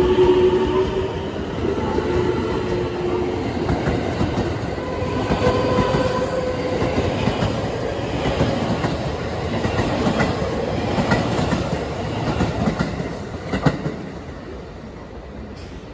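Twelve-car JR West electric train (225 series 0 and 223 series 2000 cars) running past, its wheels clicking over rail joints and its traction motors giving a steady whine that shifts in pitch. The sound dies away in the last couple of seconds as the tail end recedes.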